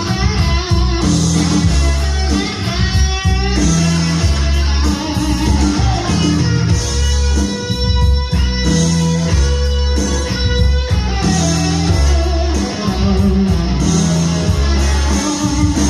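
Guitar-led music with a bass line and a steady beat, playing at an even level throughout.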